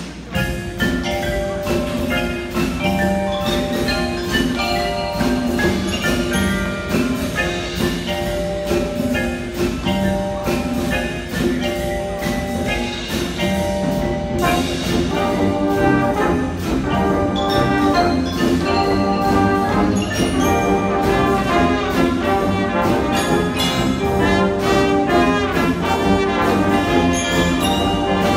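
High school marching band playing: front-ensemble mallet percussion with sustained brass and woodwind chords, growing fuller and a little louder about halfway through as the horns come up.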